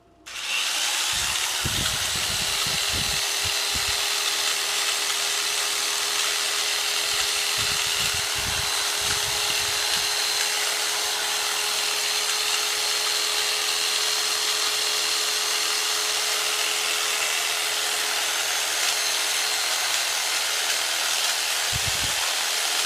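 Jigsaw converted into a percussion massager, its motor starting about half a second in and running steadily at high speed as its tip works against muscle, with occasional low thuds.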